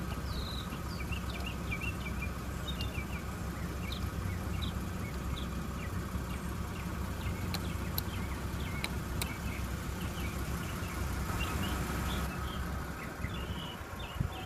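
Small birds chirping over a low steady rumble. Three sharp clicks come close together about eight to nine seconds in.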